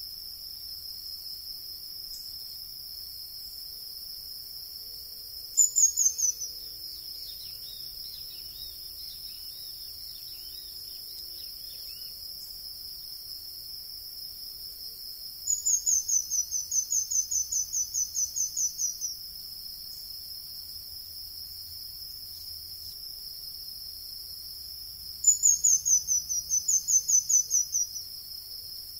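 Pin-tailed manakin singing: rapid runs of high, thin, descending notes, a short one about six seconds in, then two longer double runs later on and near the end. A steady high-pitched insect drone, like crickets, runs underneath.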